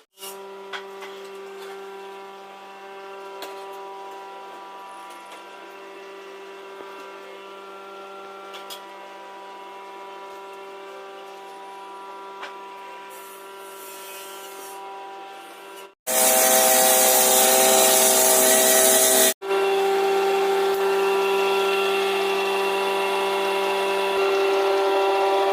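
An electric woodworking power tool's motor runs with a steady whine. After a cut about two-thirds of the way in, there are about three seconds of loud, noisy cutting into wood, then the motor whines louder and steady.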